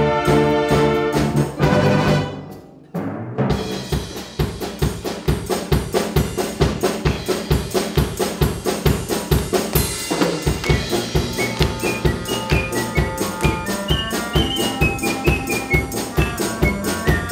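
Wind band with drum kit playing an arrangement of Korean popular songs. Held brass chords die away about three seconds in. A new section then starts on a steady, fast drum-kit beat under the band, and a high melody enters around the middle.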